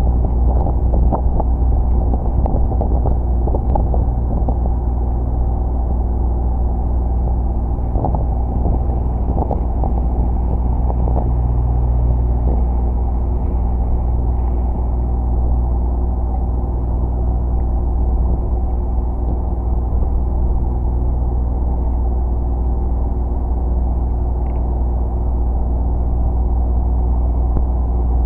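A ship's engine running with a steady low rumble. Its tone shifts slightly about twelve seconds in.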